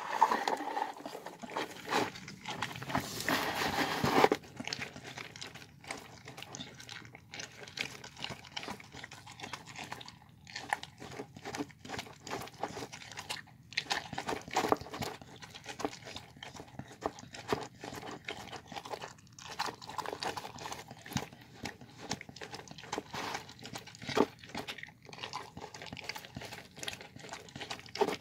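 A dog eating a bowl of homemade rice with chicken and vegetables: irregular wet chewing and mouthing of the food, louder for a couple of seconds near the start.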